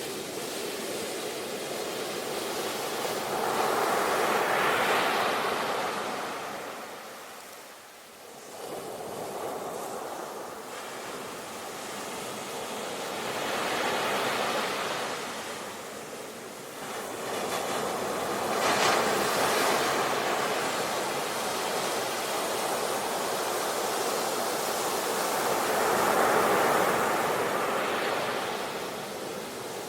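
Ocean waves breaking and washing on a shore, the surf swelling louder and falling back about four times.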